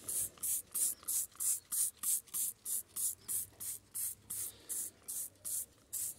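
Hand trigger spray bottle squirting bike cleaner onto a wet mountain bike frame in quick repeated pumps, each a short hiss, about three a second.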